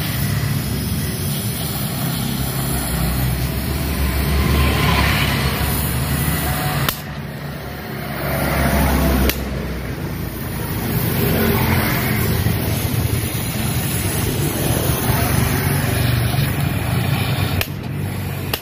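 Carbide (acetylene) gas-welding torch flame hissing and rushing steadily while it heats and welds the broken neck of a steel motorcycle exhaust pipe. The sound jumps abruptly about seven and nine seconds in and again near the end.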